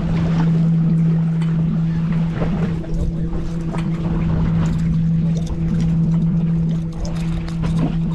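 Boat engine running with a steady low hum, with scattered short clicks and knocks over it.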